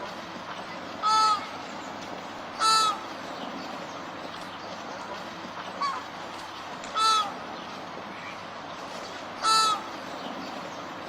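Flamingo honking: four short, loud, nasal calls at irregular intervals and a fainter one about six seconds in, over a steady background hiss.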